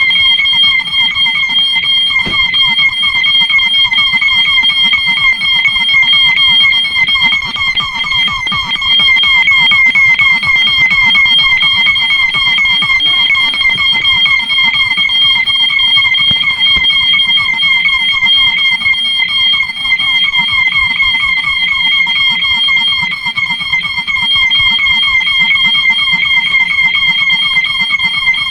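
Several fire alarm sounders going off together, very loud and continuous: one steady high-pitched tone over lower tones that warble rapidly.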